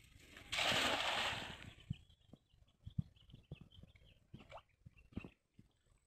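A thrown cast net landing on the lake surface: a splash about half a second in that lasts about a second and a half as the net and its weighted rim hit the water. Afterwards, scattered light knocks and scuffs.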